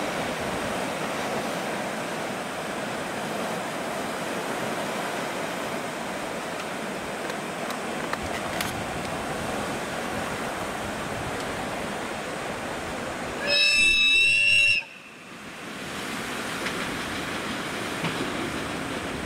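JR Freight EF81 electric locomotive sounding one loud blast of its horn, lasting over a second, about two-thirds of the way through, as the train approaches from a distance. A steady rushing noise runs underneath.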